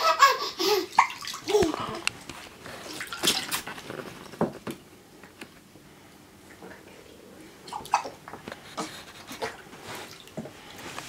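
Water splashing and dripping in a baby bath as a baby is washed by hand, in irregular small splashes. A few short voice sounds come near the start.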